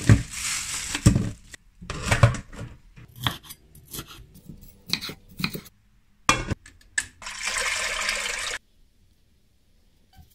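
Kitchen prep sounds in several short cuts. Water rushes and splashes over raw shrimp in a stainless steel sink, and a steel pot clinks and knocks. About seven seconds in, a steady rush of running water lasts about a second and a half and cuts off abruptly.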